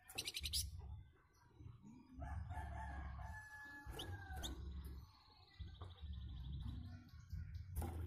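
Caged flamboyan songbird calling: a harsh, rapid rattle right at the start, then a drawn-out call about two seconds in and a fast high trill around the middle, over a low steady rumble.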